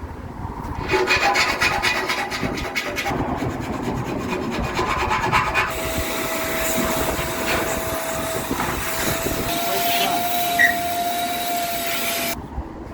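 Tool work on the boat's fitting-out: fast repeated rasping strokes like filing or sawing for a couple of seconds, then a continuous hiss with a steady tone that stops abruptly near the end.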